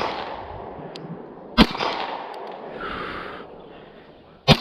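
Two shots from a Beretta LTT 9mm pistol, about three seconds apart, the first about one and a half seconds in and the second near the end, each followed by a short echo.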